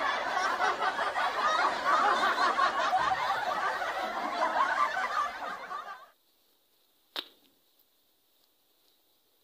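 Large niyog-niyogan (Ficus pseudopalma) leaves rustling and crackling close to the microphone as they are handled, cutting off abruptly about six seconds in. Then near silence with a single sharp click about a second later.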